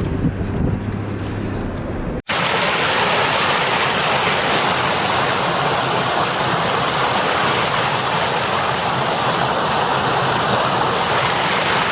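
Steady car hum inside the cabin for about two seconds, then a sudden switch to a loud, steady rush of flowing river water.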